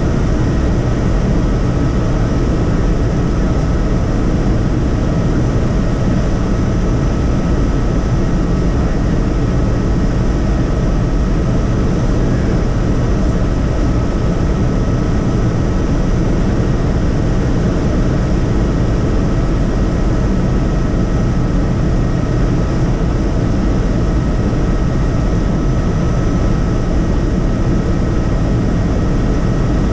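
Helicopter engine and rotor running steadily: a constant loud drone with a thin, steady high whine over it.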